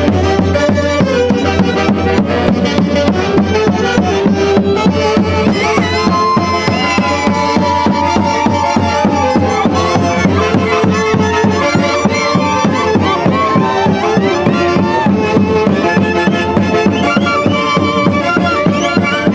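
An orquesta from Huancayo playing an instrumental piece at a loud, steady level over a quick, even beat. Its melody line swoops up and down in the middle.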